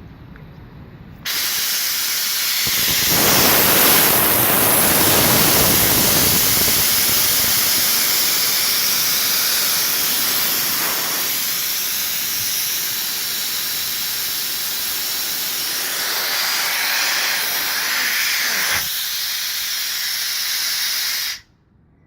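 Compressed air venting from a Bauer high-pressure compressor system: a loud, steady hiss that starts suddenly about a second in, runs for about twenty seconds and cuts off abruptly near the end.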